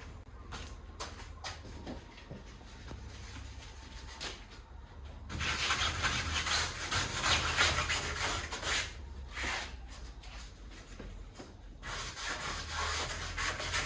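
Hand sanding of body filler on a car body panel: sandpaper rasping back and forth, faint and scratchy at first, then louder in two spells, from about five seconds in and again near the end.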